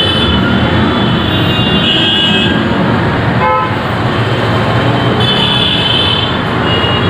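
Steady road traffic noise with a vehicle horn tooting briefly about halfway through.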